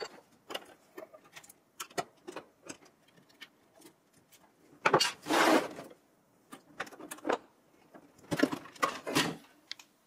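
Handling noise from pulling a graphics card out of a desktop PC: scattered clicks and taps of metal and plastic, a longer scraping noise about five seconds in, and a cluster of clicks and rattles near the end as the card comes out of its slot.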